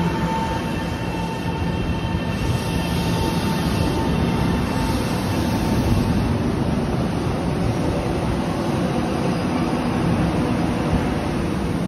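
Taiwan Railways EMU700 electric multiple unit rolling past at close range: steady loud wheel and running rumble with a faint motor whine that fades out about halfway through.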